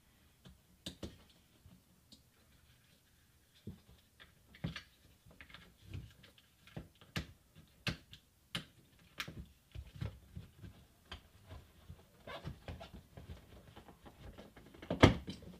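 Hard plastic door trim parts of a BMW F30 being handled and fitted into the door panel: scattered clicks, taps and knocks, with a louder knock near the end.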